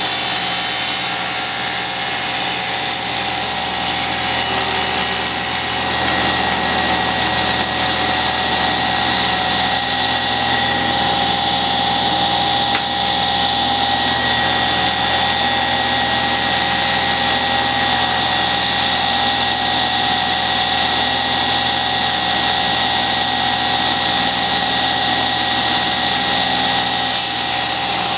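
Table saw running with a steady whine. It is ripping a board for the first six seconds or so, runs without a cut through the middle, and starts another rip cut near the end.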